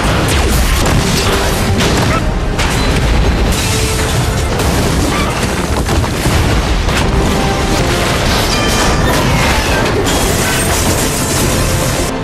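Action-film soundtrack: booming explosions and crashing destruction layered over orchestral music, loud and unbroken throughout.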